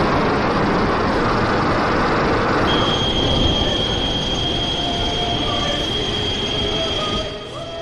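Film sound effect of Godzilla's atomic breath beam: a loud rushing blast, joined about three seconds in by a steady high-pitched whine that holds for several seconds and stops near the end.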